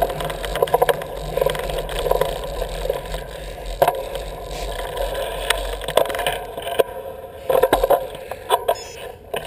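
Bicycle ridden along a tarmac road: tyre noise and wind rumble on the bike-mounted camera, with frequent irregular rattles and knocks from the bike over the road surface.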